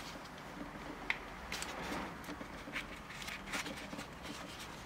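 Light rustling, scraping and clicking as a foam packaging tray and the small cabled parts of a helmet head-up display kit are handled and pulled out, with one sharp click about a second in.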